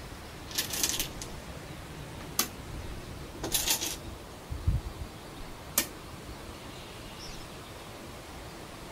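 Two sharp clicks of Go stones being placed on the board, about three seconds apart, over a steady hiss. Brief hissing rustles and a low thud fall between them.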